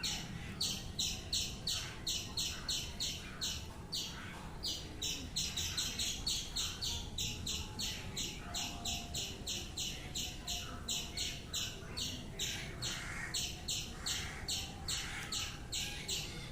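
Birds chirping in a steady run of short, high notes, about four a second, with a few brief pauses.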